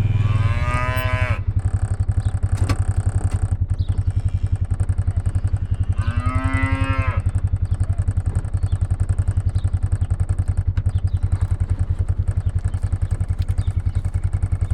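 Cattle mooing twice, once about half a second in and again around six seconds, over an engine idling with a steady rapid chug.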